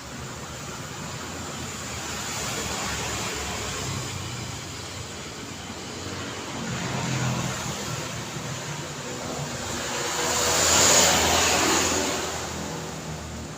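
Street traffic: a steady wash of tyre and engine noise with vehicles passing one after another, the loudest one going by close about three-quarters of the way through.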